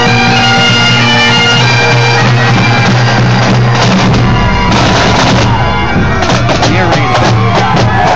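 Marching pipe band playing: the bagpipes' steady drones under a chanter melody. From about halfway through, Premier snare drums add quick rattling strokes as the drum section passes.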